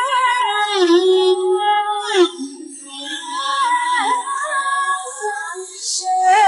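Background music: a woman's voice singing a Chinese pop ballad, holding long, wavering notes.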